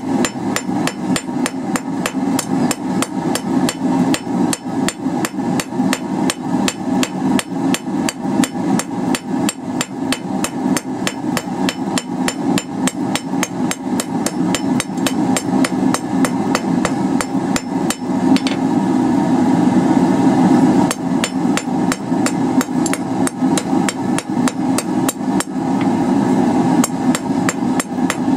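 Hand hammer striking a hot quarter-inch round steel bar on an anvil in rapid, steady blows, rounding and planishing a taper.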